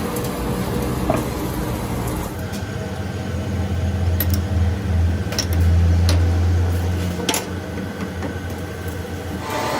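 A steady low machine hum, louder for a few seconds in the middle, with a few sharp clicks over it.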